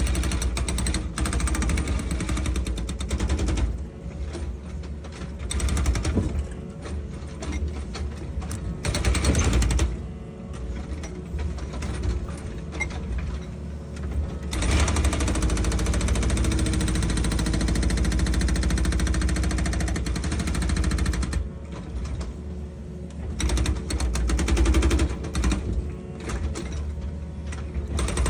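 Excavator at work: diesel engine running under load with a fast, steady mechanical rattle. The sound changes character every few seconds.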